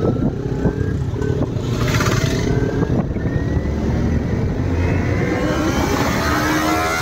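Kawasaki Ninja motorcycle engine running on the move, heard from the rider's own bike with the rush of riding air. Its pitch rises and falls with the throttle and climbs near the end as it accelerates.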